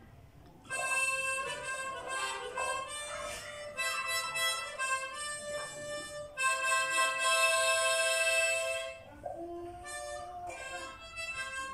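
Instrumental background music, with a lead instrument playing long held notes; it comes in after a short pause near the start.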